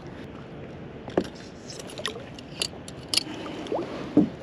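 Light handling noises as a freshly caught porgy is held over a kayak: a few short clicks and small water drips, including a couple of brief rising bloops, over a steady low hiss of water.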